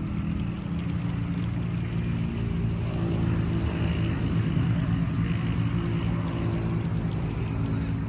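Low, steady engine drone that grows a little louder around the middle and eases off again.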